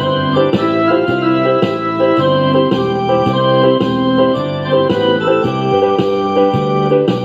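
Background music played on an organ-like electronic keyboard: sustained chords with notes changing in a steady rhythm.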